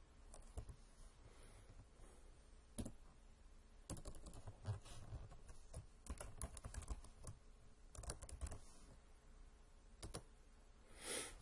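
Faint computer keyboard typing: clusters of quick key clicks, several a second, as a short name is typed in. A brief rush of noise near the end.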